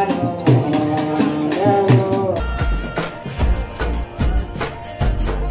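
Group devotional folk singing with a barrel drum and jingling percussion keeping an even beat. About two and a half seconds in it cuts to another session where a deeper drum and hand-clapping dominate and the singing is fainter.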